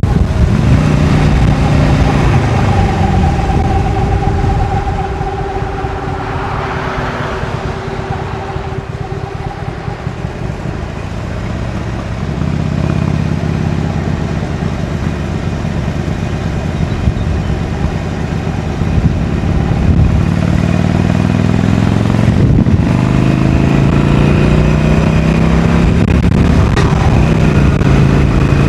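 Harley-Davidson Iron 883's air-cooled V-twin on its stock exhaust, heard from the rider's position. The revs fall away at first and the engine runs lower and quieter for a while. From about halfway it builds again, pitch rising as the bike accelerates, with a short break before the climb resumes near the end.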